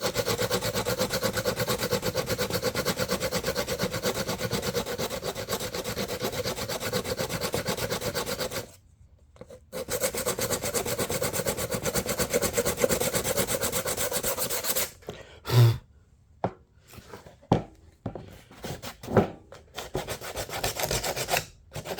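Fine sandpaper, about 220 grit, rubbed back and forth by hand over the plastic of a lawn tractor deck grass chute, smoothing a melted-plastic weld repair. Quick steady scrubbing strokes stop for about a second near the middle and resume, then give way to a few separate strokes and light knocks before the rubbing picks up again near the end.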